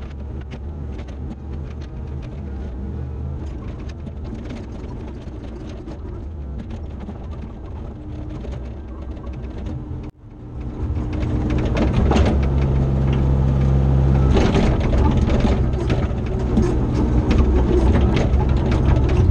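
CAT 304 excavator's diesel engine running steadily. It cuts out sharply about ten seconds in, then comes back louder and working harder, with repeated metallic clanks and knocks as it moves dirt.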